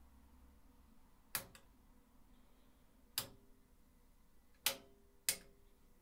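Four sharp clicks, spaced unevenly, the first one doubled, as the front-panel switches of a 1976 JVC JA-S31 stereo integrated amplifier are operated.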